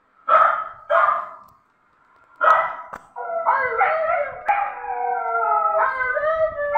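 A small dog barks three short times, then goes into a long howl that wavers and slides up and down in pitch.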